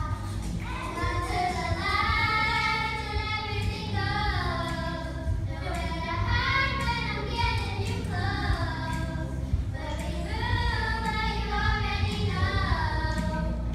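A group of young children singing together, in phrases, over a recorded pop backing track played through PA speakers, with a steady bass line underneath.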